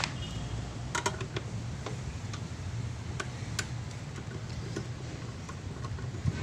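A few sharp, irregular clicks and taps, about a second or so apart, over a low steady hum.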